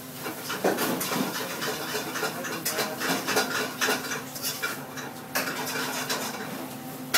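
Clatter of dishes and metal utensils, with many short clinks and knocks over a steady low hum.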